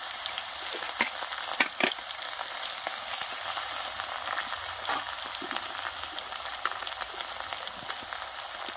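Sliced onions sizzling steadily in hot oil in an iron kadai, with a few clicks and scrapes of a metal spoon stirring them.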